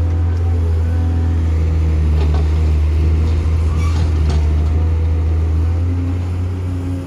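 Heavy construction machinery's diesel engine running steadily with a deep drone, and a few faint knocks about two and four seconds in.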